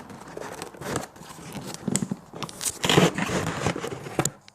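Lens packaging being handled and opened by hand: irregular crinkling and rustling with small clicks, louder in the second half.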